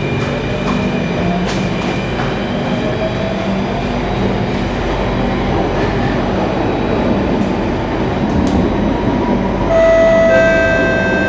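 Singapore MRT train running through a tunnel, heard from inside the carriage: a steady rumble of wheels on rail, with a motor whine that rises in pitch over the first few seconds as the train picks up speed. A higher steady tone joins about ten seconds in.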